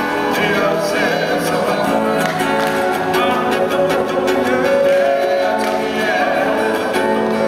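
Samoan fire-knife dance music: a group of voices singing long held notes over fast drumming.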